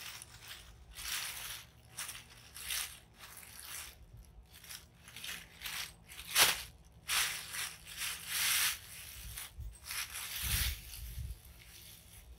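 Thin plastic grocery bag crinkling and rustling in irregular bursts as it is bunched and worked down over a metal rotisserie rod, with one sharp, loud crackle about halfway through.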